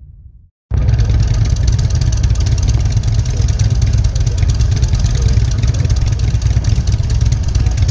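Honda GL1800 Goldwing's flat-six running at road speed, a loud steady rush of engine rumble and road noise that cuts in abruptly about a second in.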